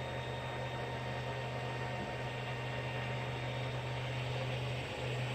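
A steady low electrical or mechanical hum with a faint even hiss, unchanging throughout.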